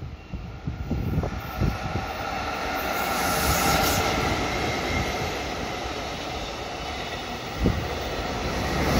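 Freight train of container wagons hauled by a JR Freight electric locomotive passing: a steady rumble of steel wheels on rail that builds over the first few seconds and then holds, with a single knock near the end.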